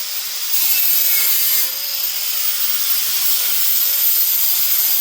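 Reciprocating saw (Sawzall) running continuously as it cuts through the seat backs of a 1969 VW bus, a loud, steady, hissy cutting noise.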